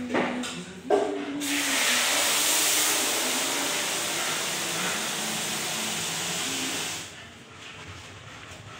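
Hand-held shower spraying water onto a wet German Shepherd's coat: a steady hiss that starts about a second and a half in and stops about seven seconds in. Two short knocks come just before it.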